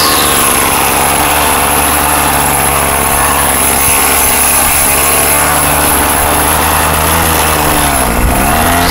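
Murray 2500 string trimmer's two-stroke engine running loud and steady at high speed, its pitch dipping briefly about eight seconds in and then picking back up.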